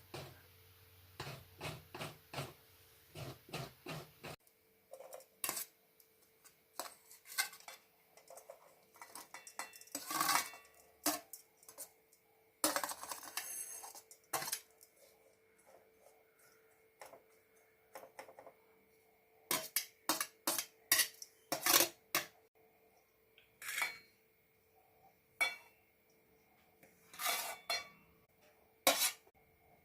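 Kitchen utensils clinking and knocking in irregular taps, with a longer rattling stretch about thirteen seconds in: metal pots, bowls and spoons being handled during cooking preparation.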